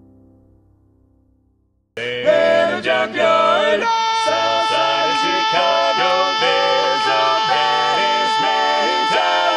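Barbershop quartet singing four-part a cappella harmony, coming in suddenly about two seconds in, with one voice holding a long high note over the moving lower parts. Before that, soft piano music fades out.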